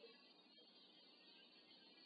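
Near silence: faint room tone and recording hiss during a pause in the speech.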